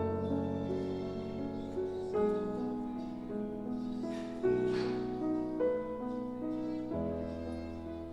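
Instrumental background music: sustained chords that change about every two seconds.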